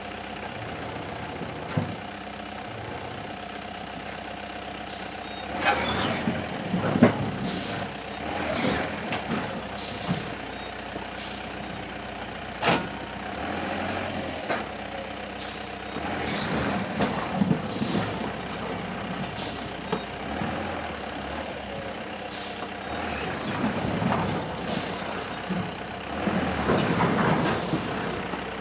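Heavy dump truck carrying firewood logs, its diesel engine running steadily. Over the engine come repeated irregular knocks and clatter from the truck and its load of logs.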